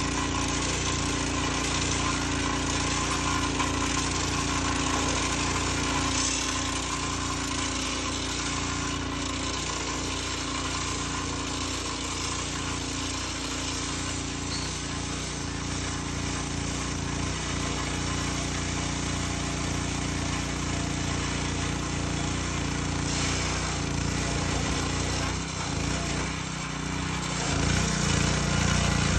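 Petrol-engine abrasive rail saw running steadily at speed, its cut-off disc grinding through a steel rail to cut it to length. It grows louder near the end as the disc bites deeper.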